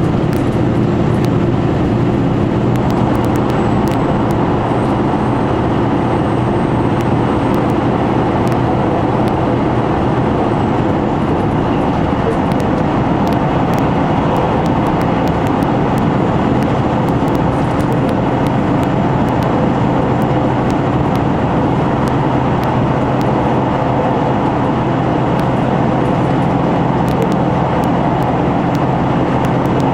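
KiHa 261 series diesel express railcar running at speed through a long tunnel, heard from inside the passenger car: a loud, steady rumble of wheels on rail, engine and tunnel-enclosed air, with a steady low hum running under it.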